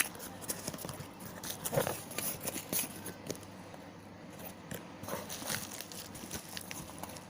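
Handling noise from plastic packaging: irregular rustling, crinkling and small clicks, with a sharp click right at the start.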